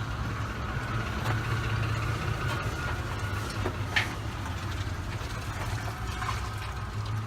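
Steady low machine hum with a faint higher tone over it, and a few light clicks and taps, the clearest about four seconds in.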